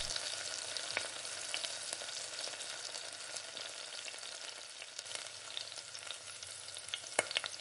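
Garlic, ginger, onion, tomato and cashews sizzling gently in oil in a stainless steel pan on a low-to-medium flame, stirred with a silicone spatula, with scattered small pops.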